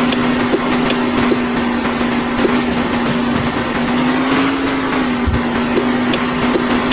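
A diesel engine of the earthmoving machinery running steadily, its pitch rising slightly about four and a half seconds in, with faint regular ticks a little under a second apart.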